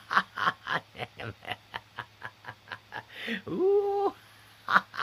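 A man laughing heartily in quick staccato ha-ha-ha bursts, about four a second. About three and a half seconds in the laughter breaks into one held open 'aah', then resumes near the end.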